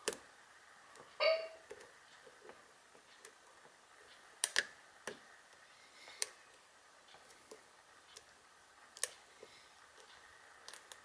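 Scattered faint metallic clicks of a hook pick lifting the pins of a Buffo cylinder lock held under a tension wrench, a lock whose pins are thought to be all serrated. A brief pitched sound about a second in.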